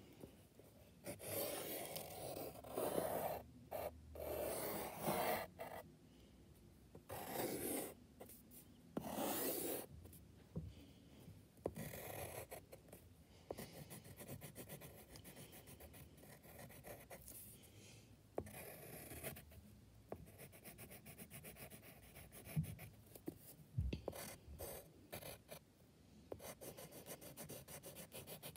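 Drawing strokes on paper: the tip rubs and scratches across the sheet in repeated strokes. There are a few longer sweeps of about a second in the first ten seconds, then quicker, shorter strokes.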